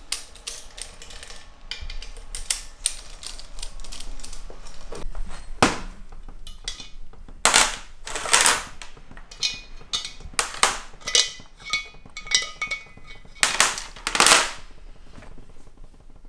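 Metal hand tools clicking and clattering on an aluminium cylinder head as its valve train is taken apart, with two pairs of louder, sharp metallic cracks, about halfway through and near the end.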